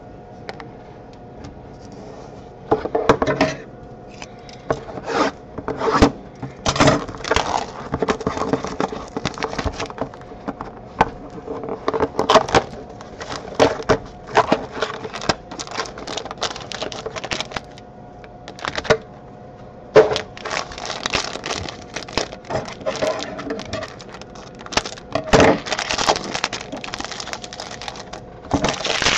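Hands handling a cardboard hobby box and a foil trading-card pack: the foil crinkles and rustles in many short bursts as the pack is opened and the cards are pulled out, over a faint steady hum.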